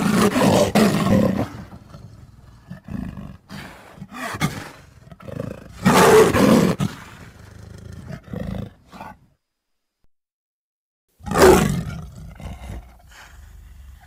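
Giant crocodile creature sound effects from a film: a series of roars. Loud ones come at the start, about six seconds in and about eleven seconds in, with shorter, quieter calls between them and a silent gap of about two seconds before the last roar.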